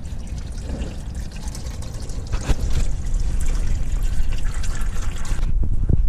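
Hot engine oil pouring from the drain-plug hole of the oil pan into a drain pan in a steady, splashing stream, just after the drain plug has been pulled. A sharp knock sounds about two and a half seconds in.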